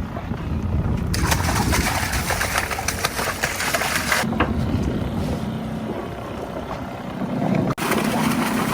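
A boat's engine running steadily, with a low hum; the sound changes abruptly a few times.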